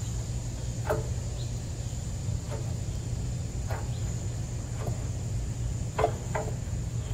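Sharp metal clinks, about six spread out, two close together near the end, as a hand tool works the catch bolt that locks the detachable bucket onto the garden tractor's front loader. A steady low hum runs underneath.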